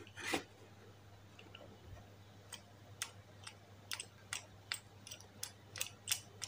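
Light ticks as an old bicycle bottle dynamo's roller is flicked round slowly by hand, about two or three a second, starting a couple of seconds in. The dynamo is turning slowly enough to make only a few volts.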